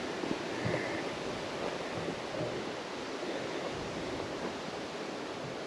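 Steady wind rushing over the microphone outdoors, an even hiss with no clear rhythm, and a few faint low knocks.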